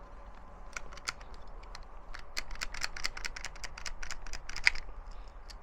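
Quick run of sharp metallic clicks and scrapes from the bolt action of a Stevens Little Krag Model 65 .22 rifle being worked and reloaded, loudest near the end; the action is unlubricated and dry.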